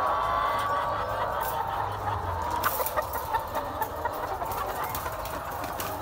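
A large flock of caged brown laying hens clucking and calling all at once in a continuous din. A few short sharp clicks come about halfway through.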